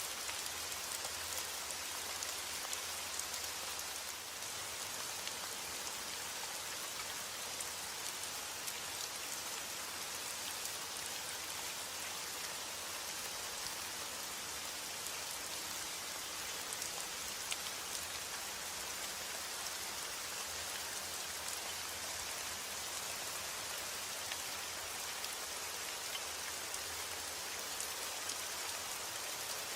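Heavy rain falling steadily, an even hiss scattered with the sharp ticks of individual drops striking a surface.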